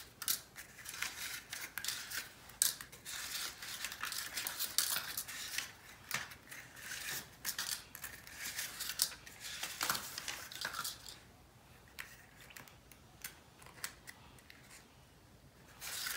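Paper cupcake liners being peeled apart from a stack and set into metal muffin tins: a run of quick, crisp rustles and crinkles that thins out to a few scattered ticks about eleven seconds in, then picks up again near the end.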